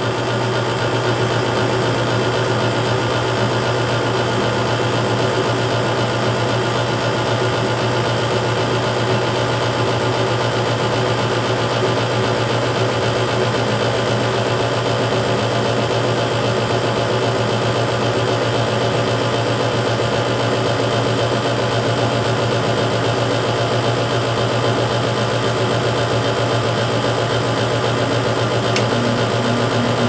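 Standard 80% gas furnace running in its heat-up stage: the combustion inducer motor running and the burners lit, a steady even hum. The indoor circulating blower is still off while the heat exchanger warms.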